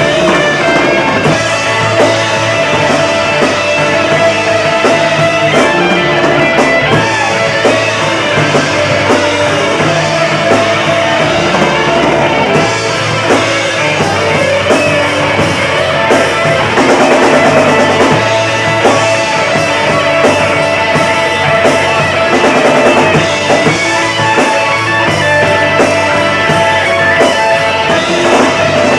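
Live rock band playing loudly: electric guitar over a drum kit, running on without a break.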